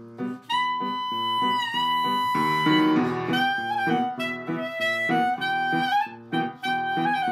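Instrumental music: a held melody line that enters about half a second in and later steps down to lower notes, over a steady, rhythmic accompaniment.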